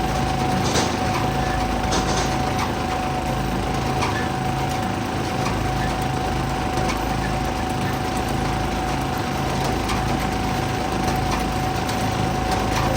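Wood splitter's small gasoline engine running steadily, with a steady whine over it and a few faint knocks scattered through.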